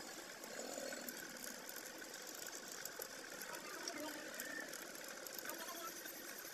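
Vertical cylinder boring machine running steadily, its spindle turning in the bore of a Honda CG 125 cylinder as it cuts.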